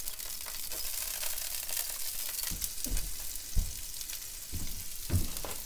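Pretzel-battered walleye fillets sizzling in hot oil in a cast-iron skillet, a steady hiss as more pieces are laid in. A few dull bumps from handling in the middle and near the end.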